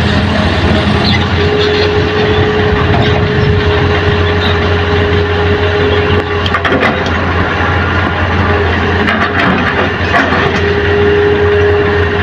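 Heavy diesel engine of a Hitachi hydraulic excavator running steadily while it digs, with a steady high whine that drops away in the middle and returns near the end. A few short knocks are heard midway.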